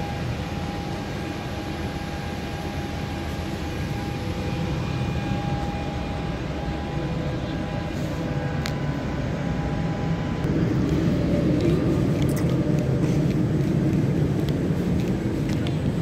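Steady whooshing hum of a Boeing 787-8 airliner cabin's air-conditioning and ventilation, with a few faint steady tones in it. It grows louder about ten seconds in, and a few light clicks come in the second half.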